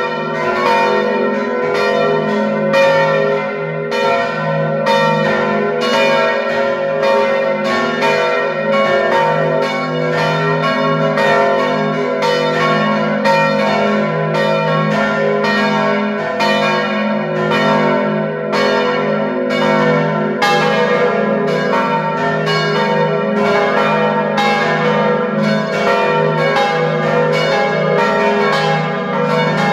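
Five swinging church bells of the Dom Tower in full peal: Agnes minor, Kruisklok, Benignus, Adrianus and Jezus Maria Johannes. Their clapper strokes overlap in a loud, continuous, uneven clangour of several strikes a second over long-ringing hum tones, heard up close inside the bell chamber.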